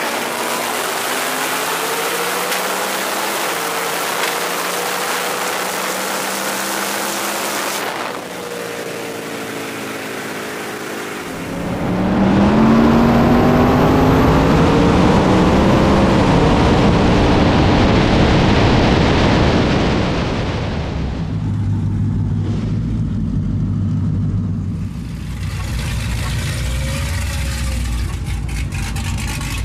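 High-horsepower street race cars running hard: engine notes climbing in pitch under full acceleration, loudest through the middle. Near the end comes a lower, steady engine rumble.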